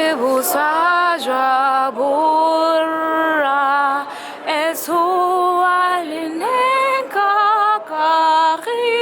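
Music with a woman singing, in long held notes that waver and slide from one pitch to the next.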